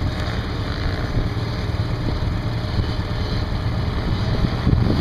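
ATV (quad) engines running at a distance, a steady low rumble.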